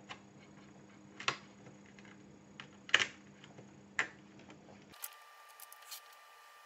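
A few faint, separate clicks and taps of a DIP ROM chip's metal legs against a plastic chip socket as it is pushed in by hand, the loudest about three seconds in. The chip will not seat easily because its legs are splayed wider than the socket holes.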